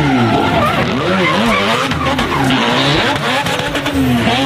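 Nissan Silvia S15 drift car sliding with tyres squealing, its engine revving up and down again and again as the throttle is worked.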